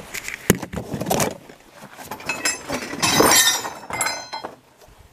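Loose metal hardware clinking and jingling as it is handled, with a sharp knock about half a second in and a longer, bright jingle a little past the middle.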